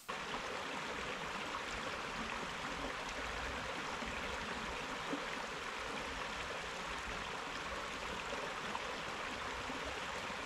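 A shallow, rocky creek running over stones, a steady, even rush of water.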